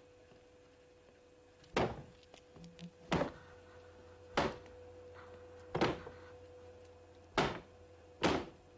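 Six heavy thuds, a second or so apart and unevenly spaced, like doors being banged or slammed.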